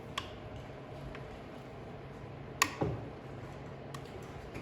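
A few isolated sharp metallic clicks, the loudest pair about two and a half seconds in, from wrench work on the cylinder head bolts of a Kawasaki FD620D engine as they are torqued down in sequence.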